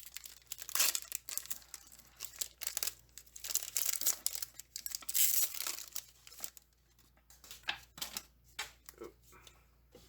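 Foil Pokémon booster pack wrapper being torn open and crinkled, in bursts of tearing and rustling through the first six seconds or so, followed by a few lighter clicks and snaps.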